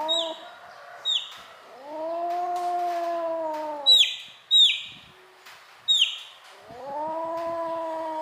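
A kitten gives two long, drawn-out yowls, each about two seconds. Between them a chick cheeps sharply about five times, loud and high and falling in pitch.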